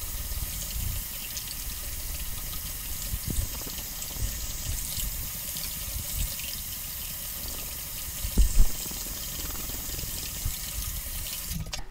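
Bathroom faucet running steadily into the sink, with a few low knocks and one louder thump about two-thirds of the way through. The water shuts off just before the end.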